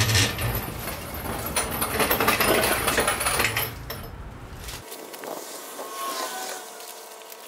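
Plastic sheet rustling and crinkling as it is dragged off an engine block on a stand, loud for the first four seconds, then quieter.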